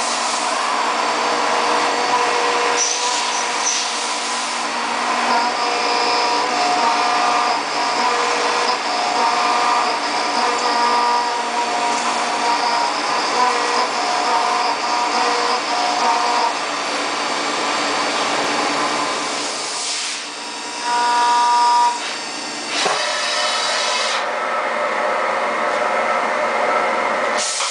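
High-speed CNC milling machine cutting aluminium. The spindle and cutter give a steady whine of several high tones over a rushing noise, and the sound changes briefly about twenty seconds in.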